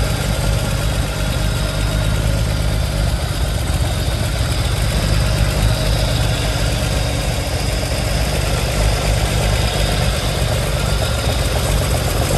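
A 1969 Triumph TR5 race car's 2.5-litre straight-six, breathing through triple Weber carburettors, idling steadily.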